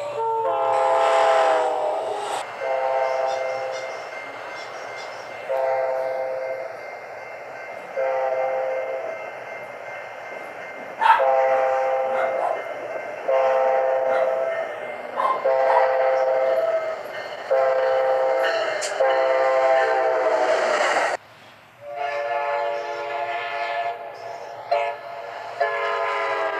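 Amtrak locomotive air horn sounding about a dozen separate blasts, most one to two seconds long, a few shorter. The sound cuts off abruptly about two-thirds of the way through and the blasts resume a second later.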